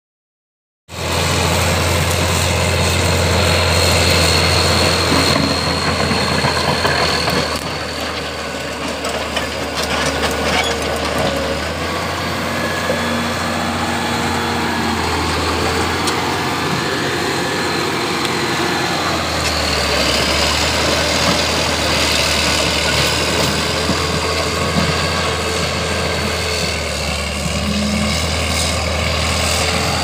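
Caterpillar D6D bulldozer's six-cylinder diesel engine running under load as it works dirt, a steady low drone. It starts about a second in, eases off for several seconds midway and then picks up again.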